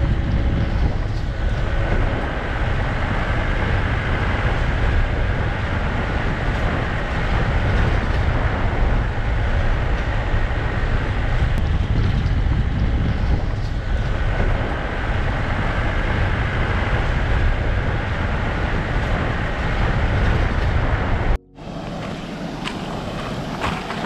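Train running along the rail line, a steady heavy rumble. About three seconds before the end it cuts off sharply to a quieter, wind-like rush.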